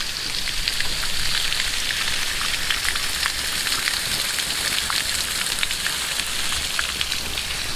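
Water gushing steadily from the open end of a PVC siphon pipe and splashing onto muddy ground, a constant crackling splash.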